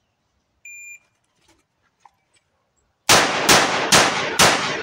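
A shot timer's start beep, about a second long, then, about three seconds later, four rapid shots from a Rossi RP63 .357 Magnum revolver. The shots come a little under half a second apart, each with a sharp report and a ringing tail, as the revolver is fired quickly from a draw from concealment. It is loaded with Blazer 158-grain ammunition.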